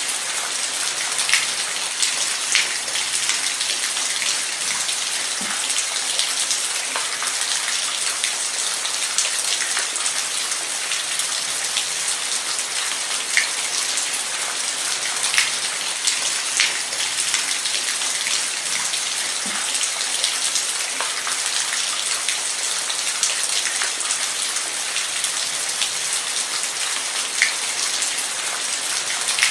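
Steady rain falling on a surface, an even hiss with scattered louder drops ticking through it.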